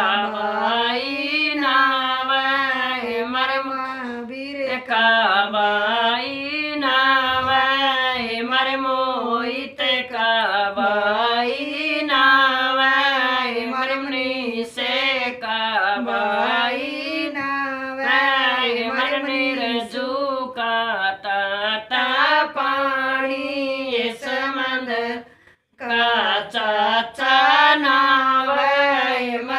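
Women singing a Haryanvi wedding folk song unaccompanied, in long wavering sung lines, with a brief pause about 25 seconds in.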